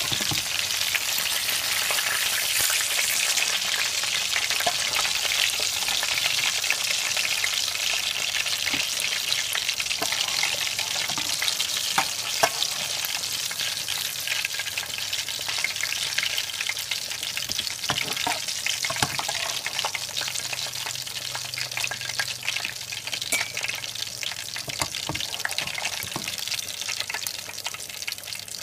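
Mackerel pieces frying in hot oil, a steady crackling sizzle, with a few sharper clicks and scrapes of a metal spatula against the pot as the browned fish is lifted out. The sizzle eases a little near the end.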